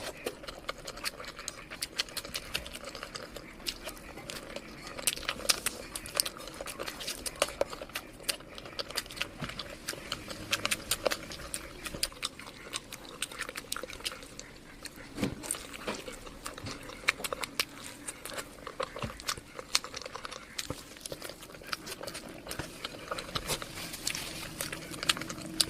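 Close-miked chewing, with many irregular mouth clicks as food is eaten.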